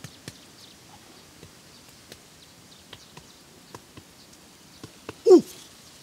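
Scattered small clicks and crunches of dry, cracked mud clods being broken and handled. About five seconds in, a single loud, short animal cry that falls sharply in pitch.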